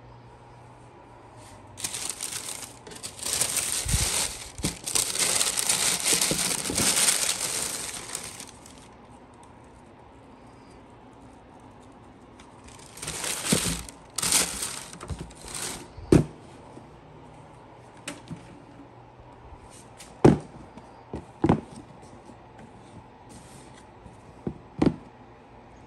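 Paper wrapping crinkling and rustling as it is handled in a cardboard sneaker box, in two long spells, followed by four sharp knocks from handling the box.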